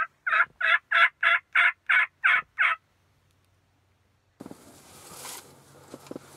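Turkey call worked by a hunter: a run of about nine loud, harsh yelps evenly spaced about three a second, ending near three seconds in. After a short silence, a faint outdoor background with light rustles starts about four seconds in.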